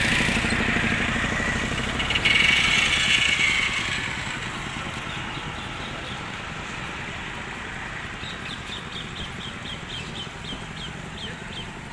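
Road traffic: a vehicle engine passes loudly over the first few seconds, then settles to a steady traffic hum. Near the end a bird gives a quick run of short chirps, about four or five a second, slowing as it stops.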